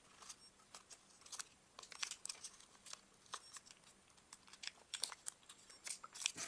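Sheet of origami paper being handled and creased into a fold by hand: faint, irregular crinkles and crackles of the paper.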